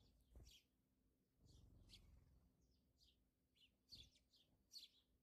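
Faint bird chirping in the background: a string of short, high chirps, with two soft thumps, one about half a second in and one near four seconds.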